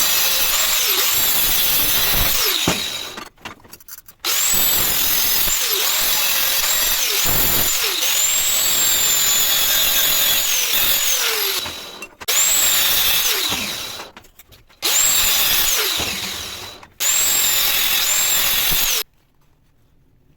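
An angle grinder works on steel square tube in five runs of several seconds. Each run starts suddenly and most trail off over about a second as the motor slows, with a high whine that rises and falls.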